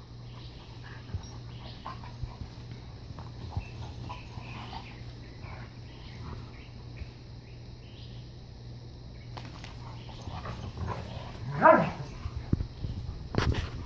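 Two Airedale terriers play-fighting: soft scuffling and mouth noises, then, near the end, one dog gives a loud, short bark that drops in pitch. A sharp knock follows about two seconds later.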